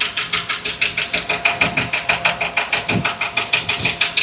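Ford 7.3-litre gasoline V8 running with a loud, fast, even knock, about eight knocks a second. The engine has a cylinder 1 misfire, and the mechanic says the knock could be a valve, piston, connecting rod, wrist pin or broken crankshaft.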